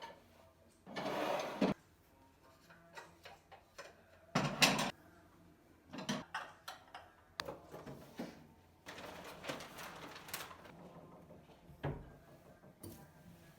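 Household cleaning and handling sounds: a few short rushing noises, the loudest about four and a half seconds in, with scattered clicks and knocks between them.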